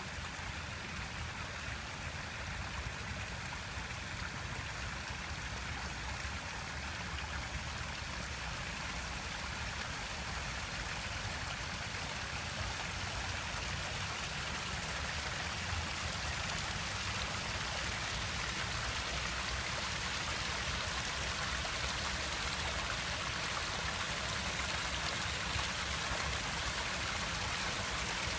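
A shallow stream running over rocks and spilling down a small cascade: a steady rushing and splashing that grows gradually louder and brighter.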